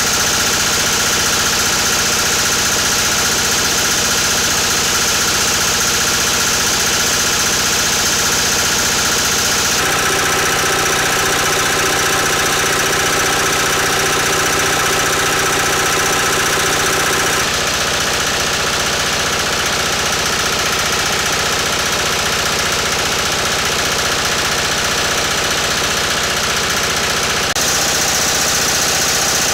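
Lister LT1 single-cylinder air-cooled diesel engine running steadily. Its tone shifts abruptly about a third of the way in, again past the middle, and once more near the end.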